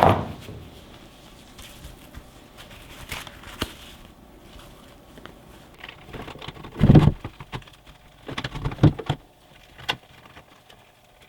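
Handling noise of a welding machine and its accessories being unpacked and set up: scattered light clicks and taps, with a heavier thump about seven seconds in and a cluster of knocks shortly after.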